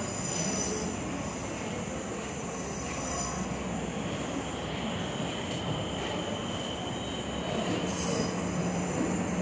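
Hyundai Rotem Série 2000 electric multiple unit approaching through the tunnel into the metro station, a continuous running rumble that builds slightly, with a steady low hum growing clearer near the end as the train comes out of the tunnel.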